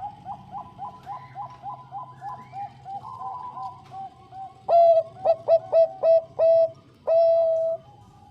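Zebra dove (perkutut bangkok) cooing: a quick run of soft, clipped coos, about four a second, then, a little past the middle, a louder phrase of short staccato coos ending in one longer held coo near the end.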